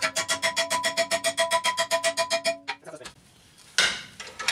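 Rapid, even hammer blows on a steel plate clamped in a bench vise, about eight a second, each ringing with a metallic tone, as the plate is bent into its first fold. The hammering stops about two and a half seconds in, and two brief noisy knocks follow near the end.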